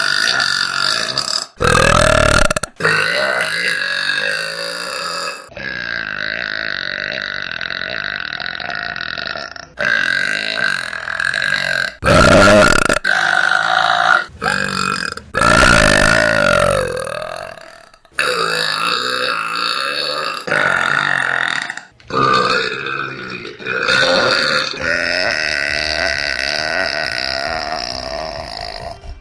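A woman burping: a string of long, drawn-out burps one after another, each cut off suddenly as the next begins. The longest last about four seconds.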